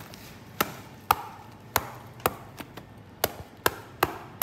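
Sharp knocks on the spiky husk of a black-thorn durian as it is struck to open it: about eight strikes, roughly two a second, each with a short, hard ring.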